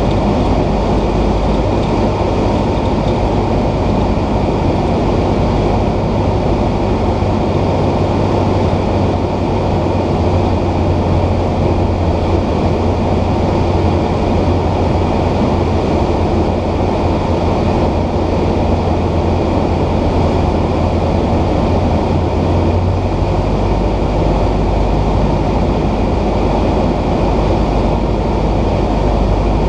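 Cessna 172's piston engine and propeller droning, with rushing airflow, heard inside the cabin in flight. Its low hum shifts lower about two-thirds of the way through.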